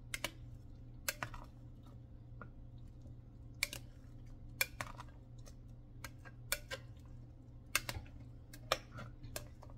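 A spoon stirring champorado in a glass pot, knocking against the pot's side in irregular sharp clicks, about a dozen of them, over a steady low hum.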